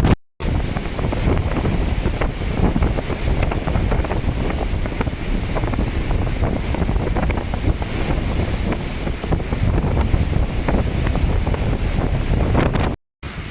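Heavy rain falling, with wind buffeting the microphone in a low rumble. The sound drops out for a moment just after the start and again near the end.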